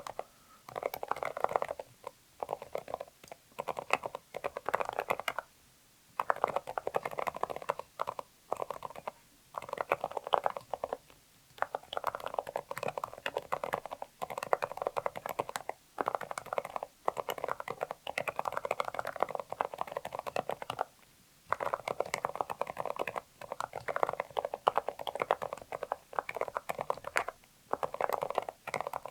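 Typing on a Zoom65 mechanical keyboard with Kailh Deep Sea Silent Box Islet silent linear switches, an aluminium plate and double-shot PBT keycaps. It gives quick runs of soft, muffled keystrokes, broken by short pauses every few seconds.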